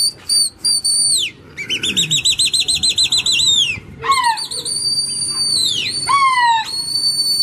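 Loud, shrill whistling by pigeon flyers to their flock. A few short rising whistles come first, then a warbling trill about two seconds in, then long held whistles that slide down in pitch at their ends, with a second, lower falling whistle joining after about six seconds.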